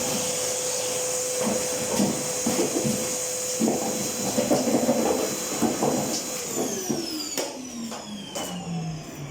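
An electric motor with a fan running at a steady high speed, with irregular knocks and rattles over it; about six seconds in it is switched off and winds down, its pitch falling.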